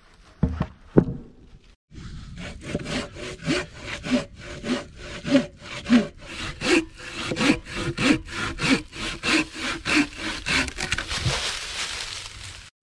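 Two heavy thumps as a carried log is thrown down onto the leaf-covered ground. Then a folding hand saw cuts through a dead log in steady back-and-forth strokes, about three a second.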